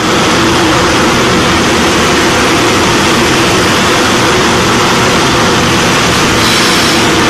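Automatic hydraulic forging press for brass valves running with a loud, steady drone and hiss. A brighter hiss comes in about six seconds in as the press ram comes down.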